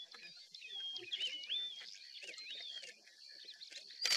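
Birds singing: clear whistled phrases that swoop up and down, repeated over and over. A single sharp click sounds just before the end.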